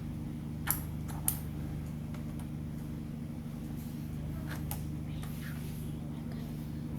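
Small clicks and taps on laptop plastic while the keyboard is being worked loose, two sharper clicks about a second in, then a few fainter ones midway, over a steady low hum.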